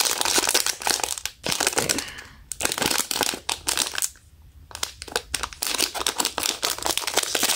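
Silver foil blind bag crinkling and crackling as hands squeeze and work it open, with two brief lulls about two and four seconds in.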